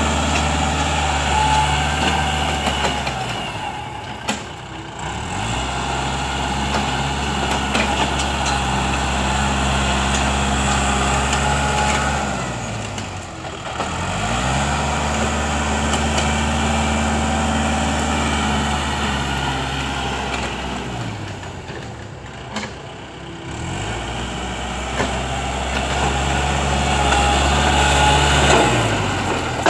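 Kubota L5018 tractor's four-cylinder diesel engine running hard while the tractor pushes soil with its front blade. Several times the engine note falls and fades, then climbs back up to speed: about three seconds in, around the middle, and longest a little after twenty seconds.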